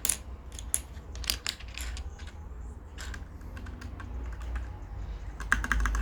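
Irregular sharp plastic clicks as keycaps are pressed by hand onto the switches of a mechanical keyboard, with a quick run of several clicks near the end.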